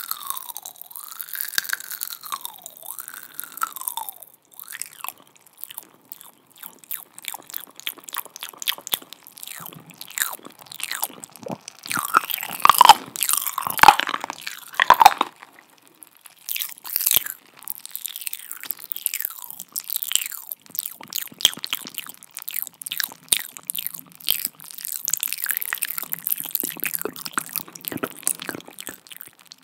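ASMR mouth sounds close to the microphone: a dense, irregular run of wet clicks, smacks and kisses. A few short sliding-pitch sounds come in the first few seconds, and the loudest smacks come around the middle, made with a hand cupped over the mouth.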